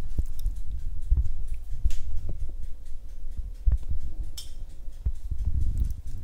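Low bumps and rumble of handling noise as the recording phone is moved about, with a few light clicks.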